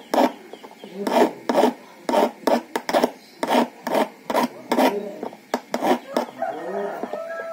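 Small hand file rasping back and forth across a metal car key blank as a new key is cut by hand, in short strokes about two to three a second.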